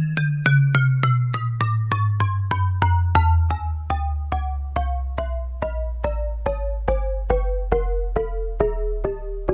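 Kurzweil Ka90 digital piano playing single notes in a steady descending run into the low bass, about four notes a second.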